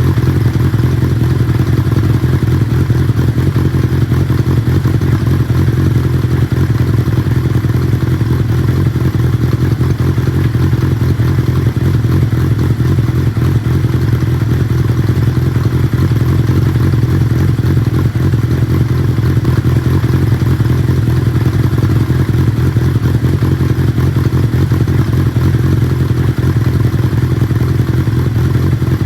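Kawasaki Zephyr 750's air-cooled inline-four engine running steadily at idle through an Onishi Heat Magic aftermarket exhaust silencer, without revving.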